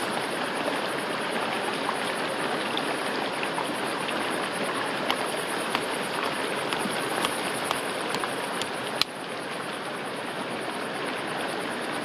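Steady rushing background noise with a few sharp taps as a knife pommel strikes wild hazelnuts on a flat stone; the sharpest tap comes about nine seconds in.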